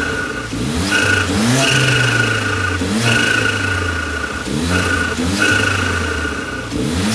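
Mercedes-AMG CLA45's turbocharged 2.0-litre four-cylinder, running with a K&N drop-in air filter and its airbox cover off, revved in short blips that rise in pitch every second or so.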